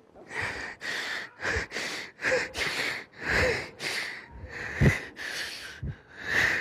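A man sobbing: about a dozen ragged, gasping breaths and sniffs in quick succession, roughly two a second. It is the reciting imam choked with weeping, unable to go on with the Quran recitation.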